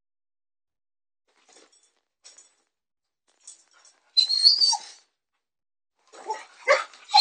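Small long-haired dog making short, high whines and yips while chasing a laser dot, with a loud high-pitched burst about four seconds in and a quick run of short yips near the end.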